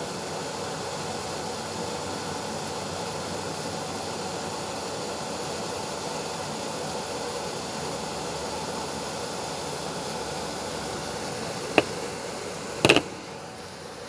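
A steady machine whir with hiss, like a fan running. Near the end there is one sharp click and, a second later, a louder short knock, after which the whir briefly drops in level.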